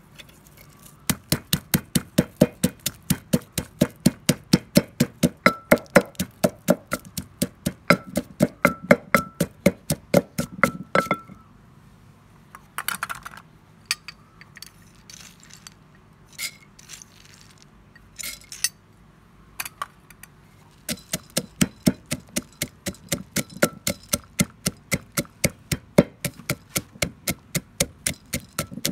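Wooden pestle pounding in a terracotta mortar (a Thai krok), crushing chilies and garlic, then peanuts, for papaya salad. It strikes in a quick even rhythm of about four knocks a second, pauses in the middle with only a few scattered knocks, then starts pounding again.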